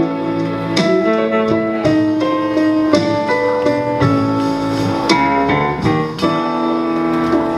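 Instrumental music without singing: a melody of sustained notes over held chords.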